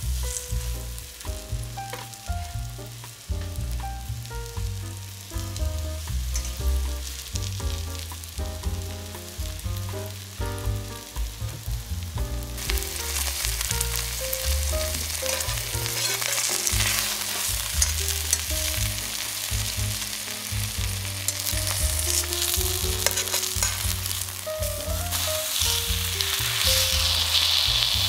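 Semolina-coated chicken breasts sizzling as they fry in oil in a stainless steel sauté pan. The sizzle gets much louder about halfway through and again near the end, over background music with a steady bass line.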